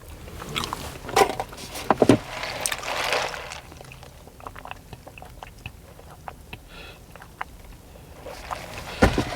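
Eating and food-handling noises: chewing and rustling with light clicks, then a sharper knock near the end.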